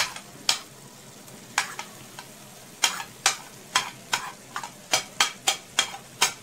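Chicken and onions frying in ghee and oil with a faint steady sizzle, while a spoon scrapes and taps diced peppers off a cutting board into the pan. The taps are sharp and irregular, a few at first and coming quickly in the second half.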